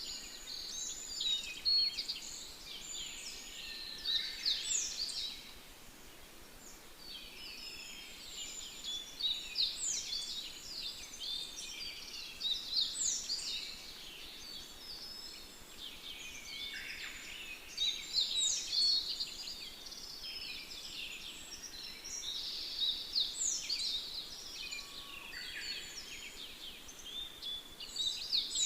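Birds singing and chirping, many quick high calls overlapping in bursts a few seconds long, with short lulls between them.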